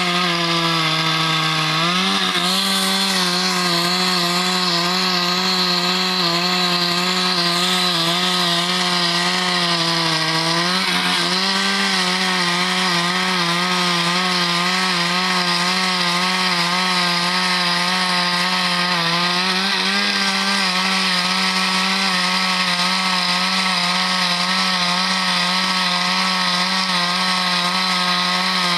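Husqvarna two-stroke chainsaw running at high revs, cutting eucalyptus wood. Its engine pitch sags under load, then jumps back up sharply about 2, 11 and 20 seconds in and again near the end.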